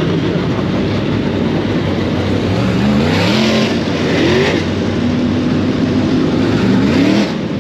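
Dirt-track race cars running laps on a dirt oval: a loud, steady engine noise with engines revving up in rising sweeps several times.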